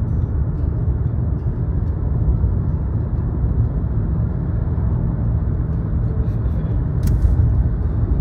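Steady low rumble of a moving car's engine and road noise, with a brief click about seven seconds in.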